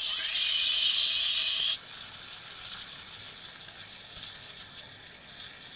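Lelit espresso machine's steam wand steaming cold milk in a steel pitcher. A loud hiss for a little under two seconds as the milk is stretched, then it drops abruptly to a quieter steady hiss as the milk keeps heating.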